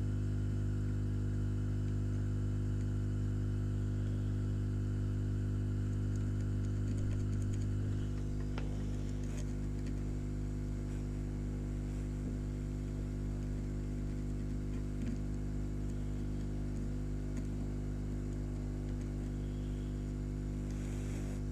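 Steady electrical hum with a low buzz that steps down a little about eight seconds in, with a few faint clicks.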